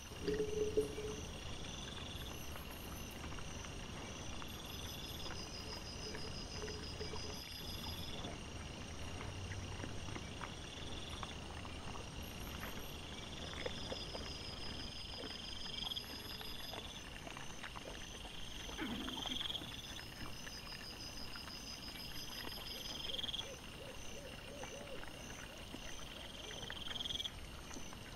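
Night chorus of insects, high-pitched chirps and short rising trills repeating every couple of seconds. A brief low call stands out about a second in.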